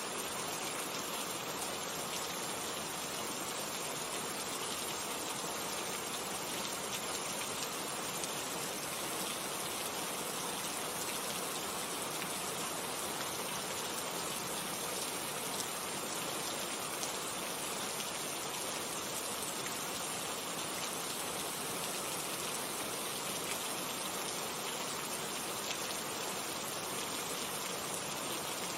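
Steady rain: an even, unbroken hiss of falling rain, flecked with faint ticks of individual drops.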